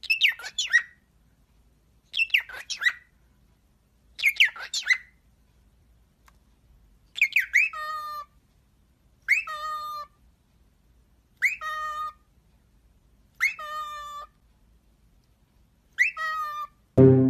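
Cockatiel whistling a short phrase over and over, about every two seconds. First comes a quick chirpy call three times; then, after a short pause, a swooping whistle that settles into a steady held note, five times.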